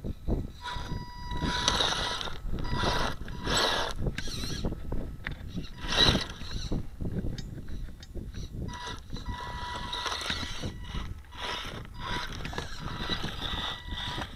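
Radio-controlled rock crawler's electric motor and geared drivetrain whining in spurts as it crawls slowly over rocks, mixed with repeated bursts of rustling noise.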